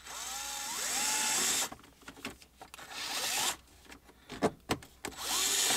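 Yellow cordless electric screwdriver running in three short runs, driving screws into car trim: a long run at first, a brief one about three seconds in, and another starting near the end.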